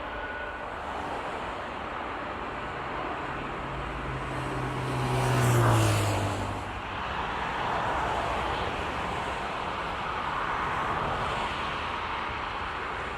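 Steady outdoor airport rumble, with a vehicle passing close by about five to six seconds in: it swells and fades, its low tone dropping in pitch as it goes past.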